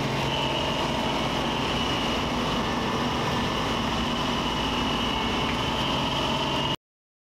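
Claas Dominator 98 SL combine harvester running steadily, a constant high whine over the engine note, cutting off suddenly near the end.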